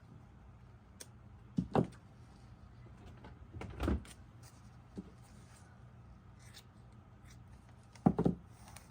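Hands handling craft pieces on a work surface: a few short knocks and rustles, with a louder pair of knocks near the end, over a low steady room hum.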